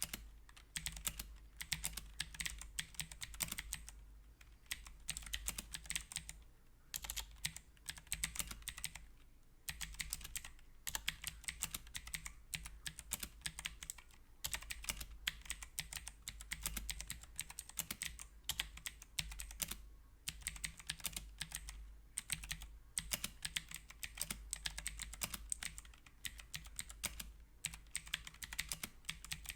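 Fast typing on a HyperX Alloy Origins mechanical keyboard with clicky blue switches: dense runs of sharp keystroke clicks, with short pauses between bursts.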